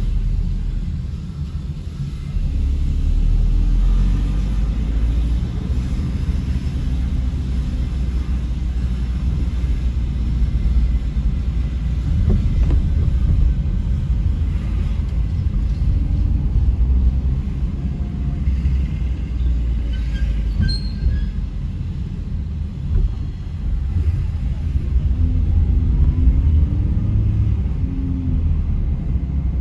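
Citroen C3 1.4 VTi 95 running, a steady low rumble with the engine note wavering up and down near the end.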